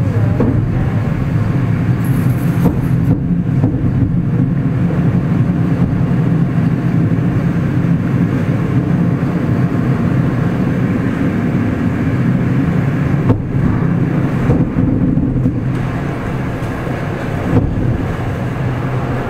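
Steady rumble of a moving passenger train heard from inside the carriage, with a few faint knocks from the running gear.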